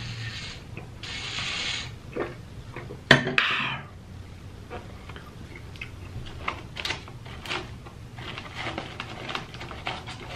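Drinking from a water bottle, then a sharp knock about three seconds in as something is set down on the table. After that come light clicks and rustles of hands picking through fried chicken and fries in paper cartons.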